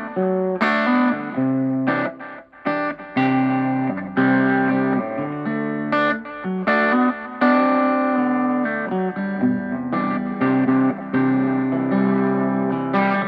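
Electric guitar played through a Kay Model 703 amplifier and a Watkins Copicat tape echo unit: a run of picked notes and chords, some left to ring for about a second, with a brief gap about two seconds in.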